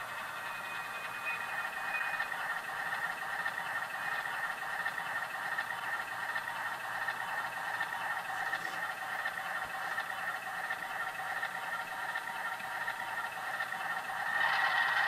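Recorded ALCO diesel prime-mover sound from an HO model locomotive's sound decoder, running steadily at low throttle through the model's small onboard speaker, with a faint thin squeal about a second in. It grows louder near the end.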